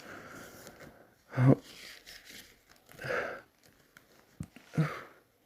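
A person hiccupping: sharp, abrupt hiccups, the loudest about a second and a half in and another near the end, with breathing and a softer catch in between.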